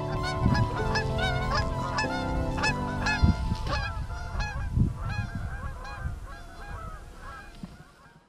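Flock of Canada geese honking, many overlapping calls that thin out and fade away towards the end. Steady low tones that change in steps run underneath for the first three seconds.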